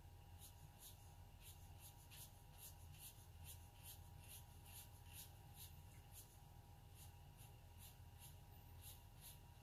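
Paintbrush making short dry-brush strokes on watercolor paper: faint, scratchy strokes at about three a second.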